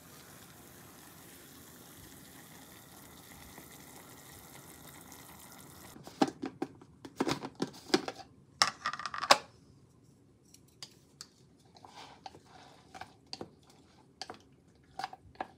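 A faint steady hiss, cut off suddenly about six seconds in. Then a quick run of sharp plastic clicks and snaps as the lid of a plastic food-storage container is unclipped and pulled off. After that come sparser, lighter clicks of wooden chopsticks against the container while wet green onion kimchi is picked out.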